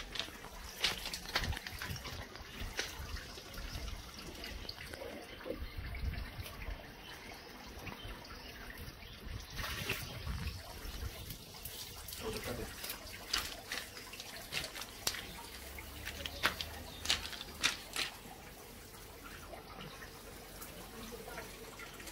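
Water splashing and dripping in a small garden fish pond being cleaned by hand, with many short irregular knocks and splashes, thickest near the start and again from about two-thirds of the way in.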